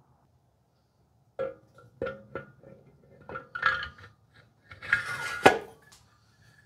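Metal engine parts of an air-cooled VW engine clinking and knocking as they are handled: a few light, ringing clinks, then a louder rattling clatter about five seconds in.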